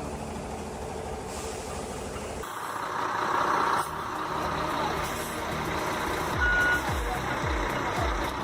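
Heavy diesel machinery running, with the sound changing abruptly twice. A single short beep comes about six and a half seconds in, followed by a run of repeated low falling sweeps.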